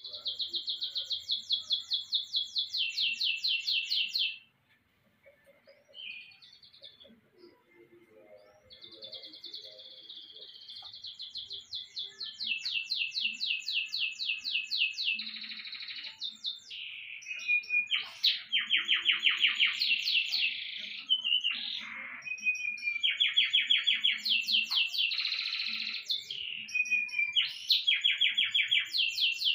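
Young Panda canary singing: fast, evenly repeated high trills in phrases of a few seconds, with rolls and glides between them. The song stops for about four seconds near the start, then comes back and grows busier, with trills following each other almost without a break toward the end.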